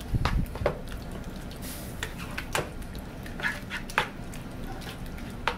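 Wooden spatula stirring thick yogurt and grated zucchini in a nonstick frying pan, with scattered light scrapes and knocks against the pan and one low thump just after it begins.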